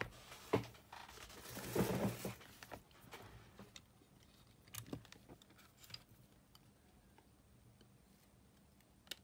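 Faint handling noise from a Sony Walkman cassette mechanism being worked on with fingers and tweezers: a few light clicks, and a short scraping rustle about two seconds in, as small plastic parts around the motor pulley are picked at.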